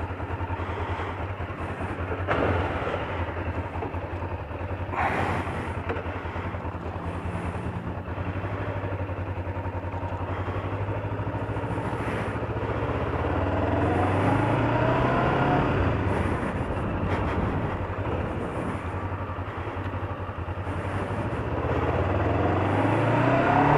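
Kawasaki Ninja motorcycle engine running while riding. The engine note climbs as it accelerates about halfway through, and again near the end.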